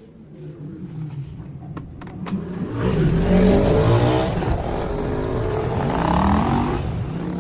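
A motor vehicle's engine passing close by, building up, loudest about three to four seconds in, then fading near the end, its engine note rising and falling.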